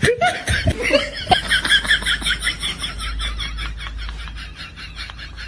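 A short voiced exclamation, then laughter: a quick run of breathy 'ha' pulses lasting about two seconds, over a low steady hum.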